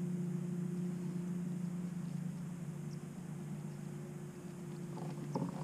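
A steady low hum runs throughout. Near the end come a few light clicks, a fork scraping and tapping in a tin can of herring.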